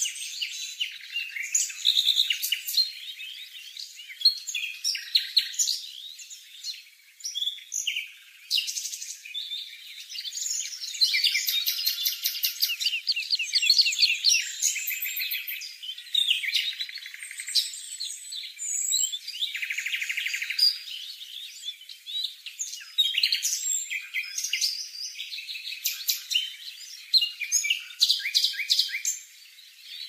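High-pitched begging chirps of a fledgling cuckoo being fed by its much smaller songbird foster parent, coming in runs of rapid repeated notes with short pauses between.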